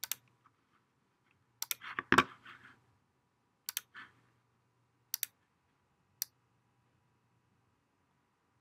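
Computer mouse clicking: a handful of sharp clicks, some in quick press-and-release pairs, spread over the first six seconds as menu items and model edges are picked, then quiet.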